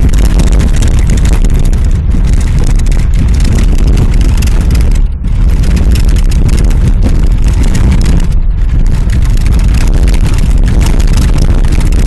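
A Volvo V40 T4 driving on a snow-covered frozen lake, heard from inside the car: a loud, steady noise of engine and tyres on snow. It dips briefly twice, about five and eight seconds in.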